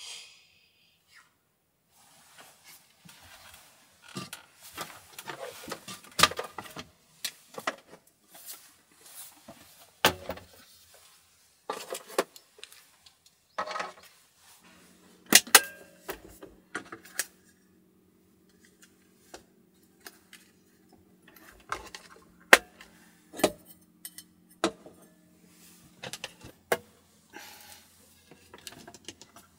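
Clicks, knocks and light clatter of kitchen things being handled and set down: a rice cooker placed on a table, plastic containers and an overhead cabinet door opened. A low steady hum comes in about halfway through and runs under the knocks.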